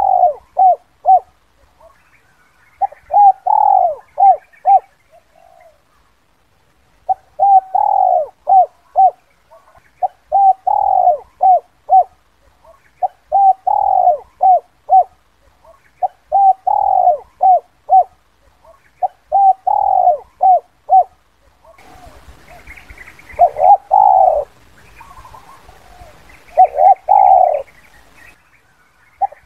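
Spotted dove (Streptopelia chinensis) cooing its repeated 'kuk 2' call: phrases of quick short notes around one longer, louder coo, about every three seconds. A faint hiss comes in behind the calls for a few seconds near the end.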